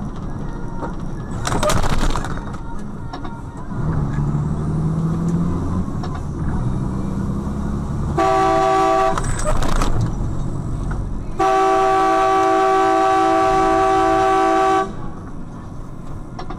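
Vehicle horn sounding twice, a short blast of about a second and then a long blast of about three and a half seconds, two steady notes sounding together, over the drone of a vehicle in motion. A brief loud burst of noise comes about two seconds in.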